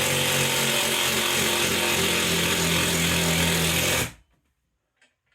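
Power drill with a 7/16 socket driving a lag screw through the TV mount's wall bracket into the wall, running steadily under load for about four seconds and then stopping abruptly.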